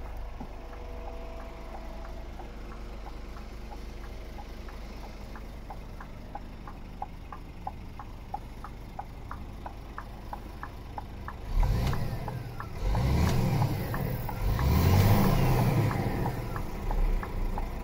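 Scania R450 truck's 13-litre inline-six diesel idling, heard from inside the cab, with the hazard-light flasher ticking regularly. About eleven seconds in, the engine revs up loudly in three rising and falling surges.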